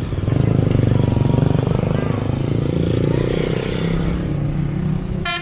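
A bus engine running close by, with the pitch climbing a little about three seconds in; right at the end a telolet musical horn starts to play.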